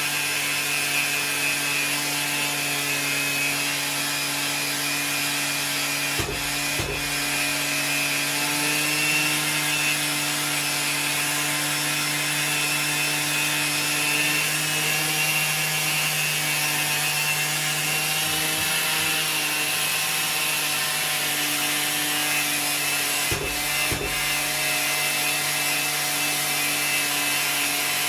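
Makita orbital sander running steadily, its sanding paper scrubbing the painted surface of an alloy car wheel to strip salt-damaged paint, with a dust extractor drawing through a hose. The sound dips briefly twice.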